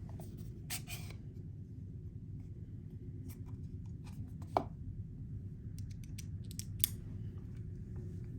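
Small scattered clicks and taps of a Torx driver and bits being handled and fitted to a folding knife's screws, the sharpest click about four and a half seconds in, over a steady low hum.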